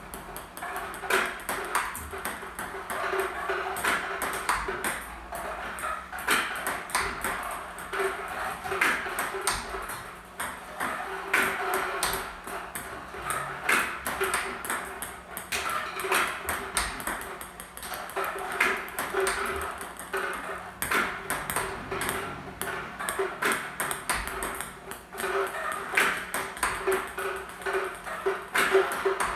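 A table tennis ball hit with a paddle again and again in a steady practice rhythm: a quick run of sharp ticks, several a second.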